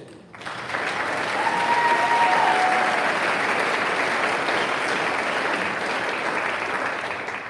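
Audience applause that starts suddenly, holds steady and fades away near the end.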